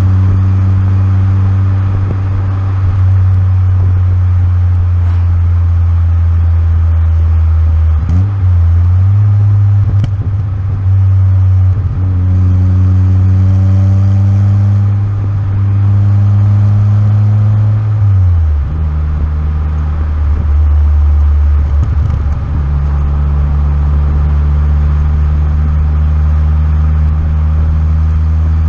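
Turbocharged Fiat Cinquecento's exhaust droning steadily as the car is driven. The pitch steps up or down several times, with a short dip in loudness at each step.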